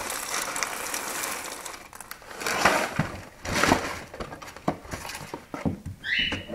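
Golden Puffs cereal pouring from its plastic liner into a bowl, trailing off in the first two seconds, then the plastic bag crinkling and the cardboard box being handled in a few short bursts. A brief squeak comes near the end.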